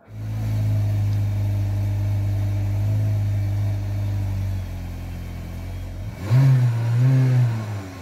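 Škoda Octavia RS 245 hp's 2.0-litre turbocharged four-cylinder petrol engine idling, heard from behind at the exhaust. The idle drops a little about halfway through, then two quick throttle blips rise and fall near the end.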